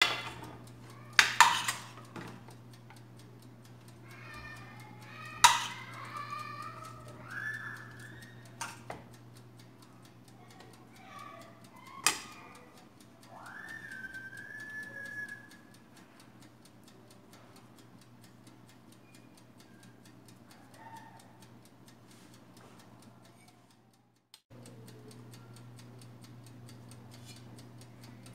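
Kitchen work sounds: a few sharp clinks and knocks of utensils against a plate, the loudest at the very start, over a steady electrical hum and faint steady ticking.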